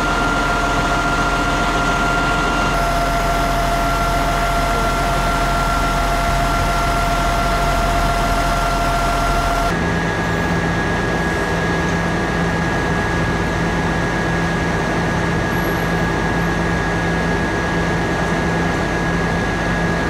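A heavy vehicle engine running steadily with a constant hum, as from the aerial platform truck or crane at work. The tone of the hum changes abruptly about ten seconds in.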